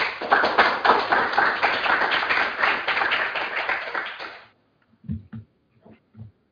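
Audience applauding, a dense patter of claps that fades out after about four and a half seconds.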